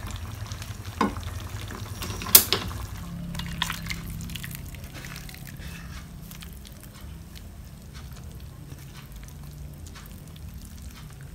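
Cooking at the stove: a pot of clear vegetable soup on the heat gives faint crackling over a low steady hum. There is a soft knock about a second in and a sharp pot or utensil knock about two and a half seconds in.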